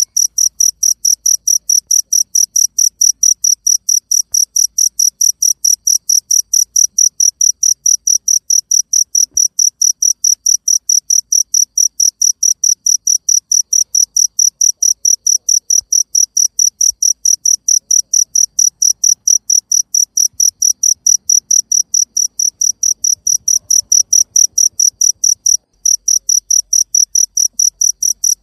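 Cricket chirping steadily, a high, even pulse of about four chirps a second, with one short break near the end.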